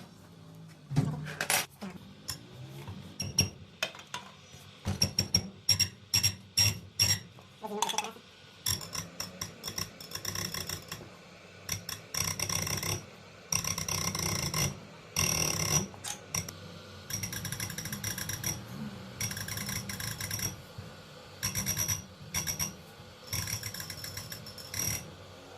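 Metal clicks and knocks of tool work, then a diesel fuel injector buzzing in repeated bursts of about a second each as it is pumped on a hand pop tester. The chatter is the nozzle spraying as it is tested.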